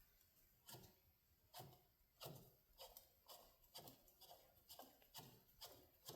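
Faint, rhythmic rubbing strokes, about two a second, as a hand turns a spin-on oil filter snug onto its mount.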